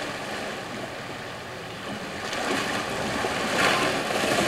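1972 Chevy Blazer wading through a deep water crossing: water sloshing and splashing around the truck with its engine running underneath. The splashing grows louder about two and a half seconds in.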